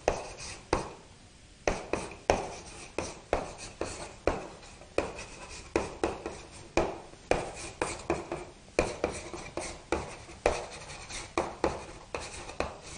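Writing by hand on a board: an irregular run of short taps and scratches, about two or three a second.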